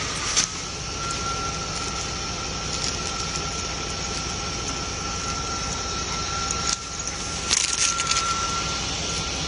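A dog rustling through tall grass and weeds, with a few brief crackles about half a second in and again around seven to eight seconds. Under it runs a steady background hiss with a constant high hum.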